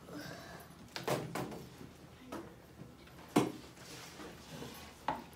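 A few sharp knocks and bumps in a classroom, the loudest about three and a half seconds in.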